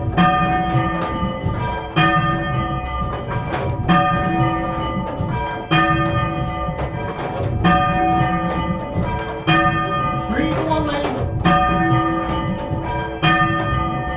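A ring of three church bells, cast by Thomas Mears II of London in 1824, rung full-circle in change ringing. The strokes follow one another in a steady repeating cycle, with the loudest stroke coming round about every two seconds, each ringing on under the next.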